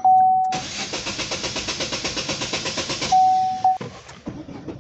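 Chevrolet Sonic's starter cranking the engine for about two and a half seconds without it catching, the engine turning over in quick even pulses; the tank is out of fuel, so there is no fuel pressure to start. A repeating dashboard warning chime sounds at the start and again briefly after the cranking stops.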